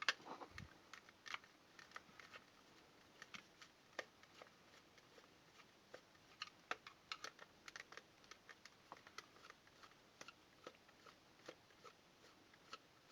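Faint, irregular small clicks and taps of hands working a plastic fake security camera housing apart, driving out tiny screws.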